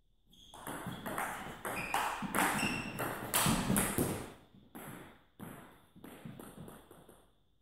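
Table tennis rally: the ball clicks in quick alternation off the table and the players' bats, echoing in a sports hall. The rally stops about five seconds in, and a few scattered taps follow.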